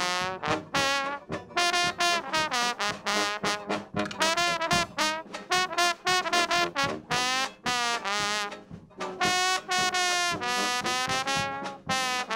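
Slide trombone playing a solo: a quick run of short, separate notes, with some notes bending and sliding in pitch.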